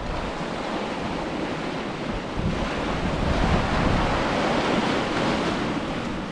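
Ocean surf: a wave breaking and washing up the beach, swelling a couple of seconds in and easing off near the end, with wind rumbling on the microphone.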